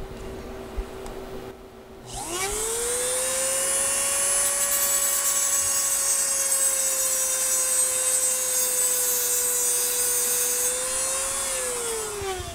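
Eastwood tungsten grinder, a small Dremel-style rotary tool, spinning up about two seconds in and running at a steady high whine while cleaning the TIG tungsten electrode. It winds down near the end.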